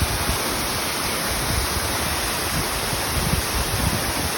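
Waterfall running: a steady rush of falling water, with a flickering low rumble underneath.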